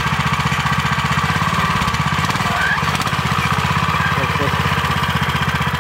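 A homemade four-wheel-drive mini-tractor's 15 hp Lifan walk-behind-tractor engine runs steadily with a fast, even pulse as the tractor drives slowly over snow.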